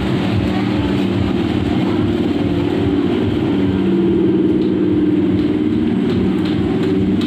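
Electric suburban local train (EMU) moving alongside the platform, its motors running with a steady hum and the rumble of the cars.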